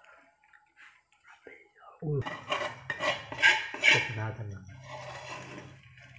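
Large steel tray clattering and scraping as hands knead a hot semolina and flour mixture in it. About two seconds in comes a run of loud metallic knocks lasting around two seconds, and a low hum starts with them and carries on.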